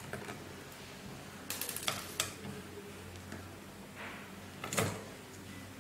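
A handful of light clicks and taps of a screwdriver working the battery screws out of an HP ProBook 430 G8 laptop's chassis, with a small cluster of them about a second and a half in. A faint steady hum runs underneath.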